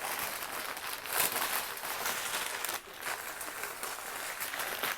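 Packing paper crinkling and rustling as it is handled and pulled out of a cardboard box, in a continuous stream of short, irregular crackles.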